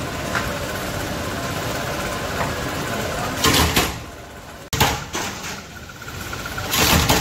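Flywheel-driven power press running steadily while cutting slipper soles out of a sheet, its die coming down in three loud strokes roughly one and a half seconds apart over the second half.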